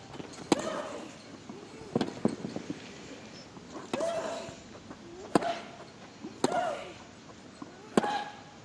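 A tennis rally: the ball struck back and forth with rackets, a sharp crack about every one to one and a half seconds, several shots with a short grunt from the player.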